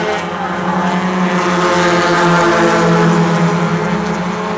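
A pack of small import race cars, Hondas among them, running hard together around a paved oval, their engines forming a steady, many-pitched drone. The engine sound swells slightly about two to three seconds in as the cars come closest.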